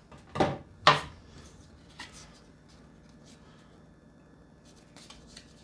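Light handling noises from a pocket knife and its packaging: two sharp knocks near the start, then faint scattered clicks and rustling.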